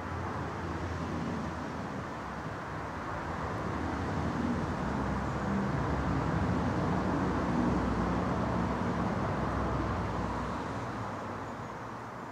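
A passing vehicle's low rumble, swelling slowly to a peak about seven or eight seconds in and then fading away.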